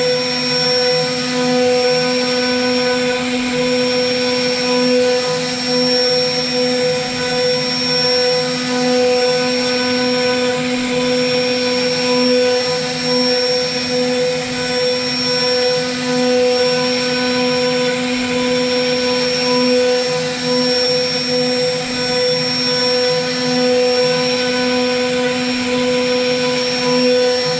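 CNC router spindle running with a steady whine while its bit carves a relief pattern into a wooden panel, over the even hiss of the cut.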